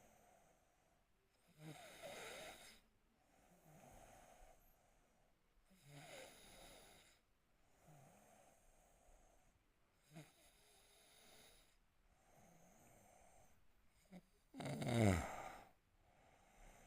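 A sleeping man snoring: a louder rasping snore on the in-breath about every four seconds, with softer breathing between, the loudest snore near the end.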